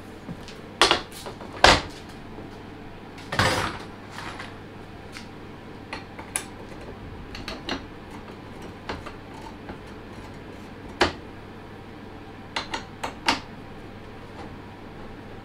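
Irregular metal clinks and knocks from handling and fitting the parts of a lathe steady rest while a pin is pushed through. There are two sharp knocks in the first two seconds, a short scrape about three and a half seconds in, then lighter scattered clicks, a sharper knock near eleven seconds and a quick cluster just after.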